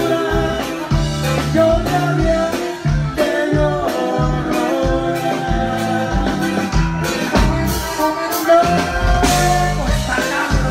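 Live norteño band playing: button accordion melody over a twelve-string bajo sexto, bass and drums, with a male singer's voice, including a long held note near the end.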